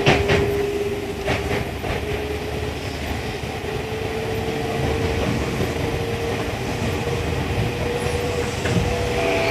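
Tokyu 1000 series electric train running, heard from inside the car. The GTO-VVVF inverter and traction motors hold a steady tone that climbs a little about halfway through, over the rumble of the wheels. A few clicks of the wheels over rail joints come in the first two seconds.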